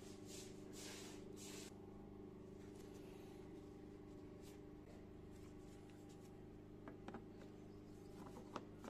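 Faint workshop sounds over a steady low hum: about four short hisses in the first couple of seconds, then a few small clicks and knocks of parts being fitted onto a plastic lawn mower deck near the end.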